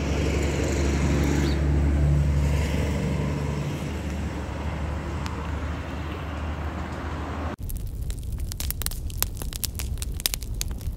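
A motor vehicle's engine runs close by, a steady low hum that is loudest about two seconds in and then eases off. It cuts off abruptly about seven and a half seconds in, and a small fire of dry branches takes over, crackling with many quick, sharp pops.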